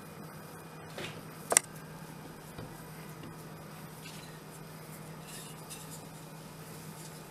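Hands patting and handling dough on a wooden cutting board, with a sharp knock about a second and a half in, then soft rubbing as a wooden rolling pin starts rolling over the dough. A low steady hum runs underneath.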